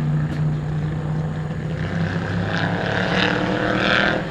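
1963 Shelby AC Cobra's 289 cubic-inch Ford V8 running, a steady low engine drone, joined from about two seconds in by a louder, higher engine note that builds and then drops off sharply near the end.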